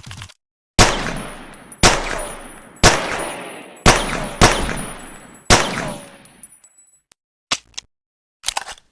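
Pocket pistol firing six shots, roughly one a second with one quicker pair, each crack trailing off in a long echo. Short mechanical clicks come at the start and near the end.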